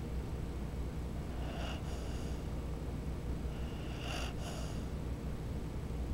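Pit bull snoring in deep sleep: two snoring breaths, each in two quick parts, about two and a half seconds apart.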